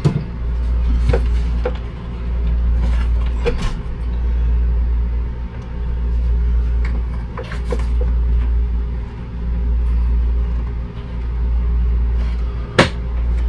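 A steady low rumble that swells and eases every couple of seconds, with a few light knocks and clicks from hands working in a cabinet and a sharper knock near the end.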